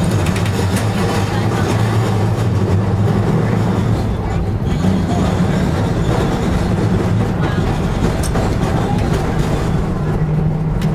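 Electric trolley car running on street track, heard from the driver's platform: a steady low hum with a few faint clicks.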